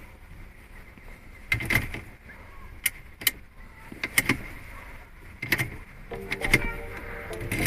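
A series of sharp metallic clicks and knocks, roughly one a second, from a key being worked in a BMW E60 ignition lock that is jammed and will not turn.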